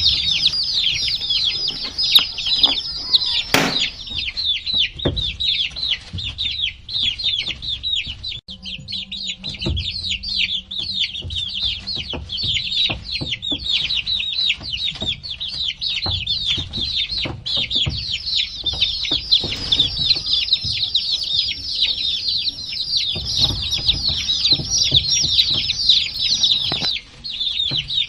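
A flock of baby chicks peeping nonstop: many short, high calls, each falling in pitch, overlapping one another. Scattered light taps and knocks come through, with one sharp click about three and a half seconds in.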